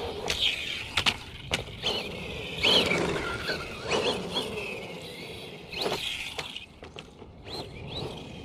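Brushless RC buggy driving in short bursts: the motor's whine rises and falls several times, mixed with sharp clicks and clatter from the chassis and tyres.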